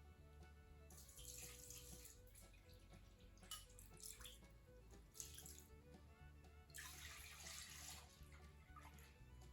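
Old diesel fuel being poured for cleaning parts: faint liquid splashing in several short spells, over quiet background music.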